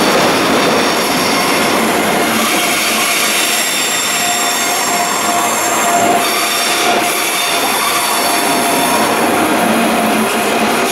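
Train running on the rails at close range, with wheels squealing. The high-pitched squeal stops about six seconds in, over a steady lower tone and rail noise.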